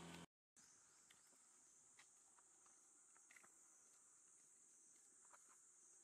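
Near silence: a faint, steady high-pitched insect drone, with a few faint ticks.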